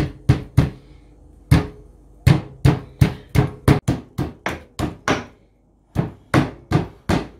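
Pestle pounding ginger and garlic in a mortar: a run of sharp knocks, about three a second, with two short pauses, about a second in and about five seconds in.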